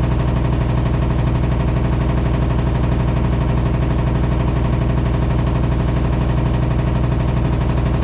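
Hitachi SF-150TCV 15 kg top-loading washing machine in its spin cycle, a loud, steady hum with a fast, even rattle. The owner is unsure whether this much noise is normal, since the newly installed machine checks out level.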